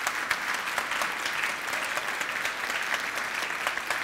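A large audience applauding steadily: many hands clapping at once.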